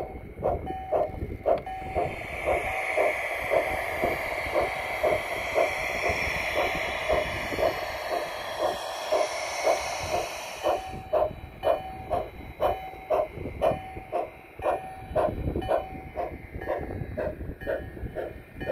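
Garden-scale model Climax locomotive and cars rolling along the track, with an even rhythm of clicks about two to three a second. A hiss rises about two seconds in and cuts off suddenly about eleven seconds in.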